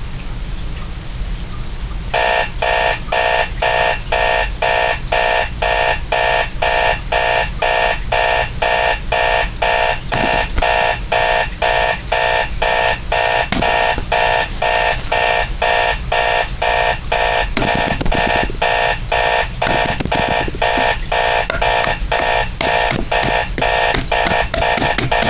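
Electronic alarm clock going off, starting about two seconds in: a loud, harsh buzzing beep repeated about three times a second without a break.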